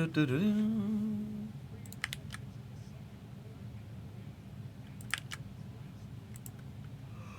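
A man's voice humming a sliding tune at the start, fading out within about a second and a half. After that come a few short bursts of sharp clicks, two or three times, over a low steady background hum.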